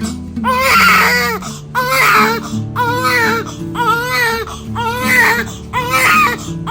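Newborn baby crying in a run of wails, about one a second, over background music.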